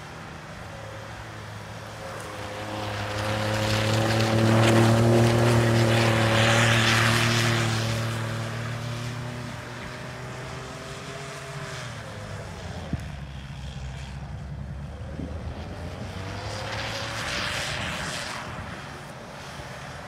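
A Ford F-150's twin-turbo EcoBoost V6 is worked hard as the truck spins donuts in snow, its engine note mixed with a hiss of spinning tyres and spraying snow. It swells loudest a few seconds in, eases off past the middle, and builds again near the end.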